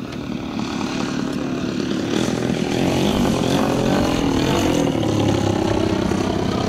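Engine of a 35% scale Aeroworks Extra 260 radio-control aerobatic plane, growing louder as the plane comes in low over the runway to land, its pitch dropping as it passes close by.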